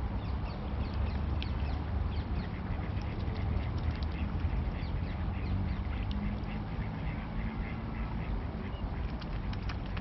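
Ducks quacking in short calls, over a steady low rumble.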